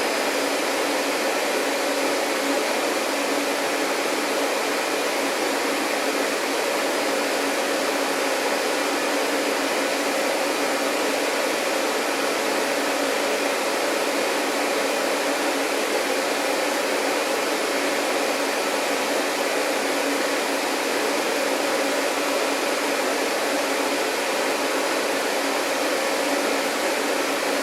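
Vacuum cleaner running steadily: an even, unbroken whooshing noise with a faint steady motor hum.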